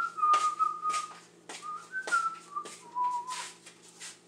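A person whistling a short, wandering tune of several notes. Underneath, ground pepper is shaken from a small jar in short rattling shakes.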